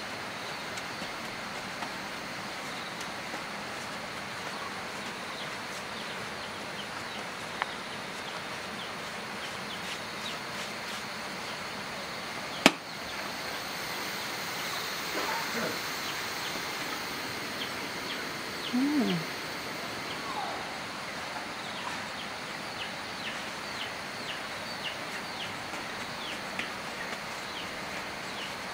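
Outdoor village ambience: a steady background hiss with one sharp knock about halfway through and a brief low voice-like sound a few seconds later. Faint, short, high bird chirps come in repeatedly near the end.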